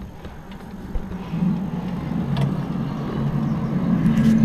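Low, steady droning hum carrying two held tones, swelling gradually louder. It is the unexplained outdoor noise of the kind reported as 'strange sounds' in the sky.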